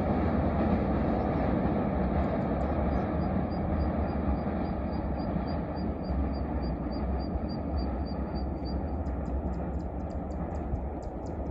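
Train running past on the line, its steady rumble slowly fading as it draws away. Faint high pips repeat evenly through the middle, then a few faint clicks follow.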